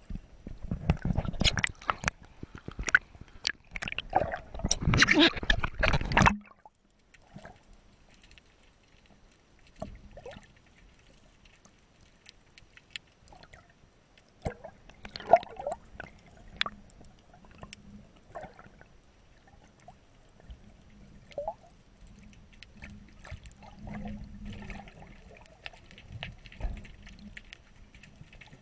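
Water splashing and sloshing against a half-submerged camera, loud and full of sharp clicks for about six seconds, then cutting off suddenly. After that come faint, muffled underwater gurgles, bubbles and occasional clicks.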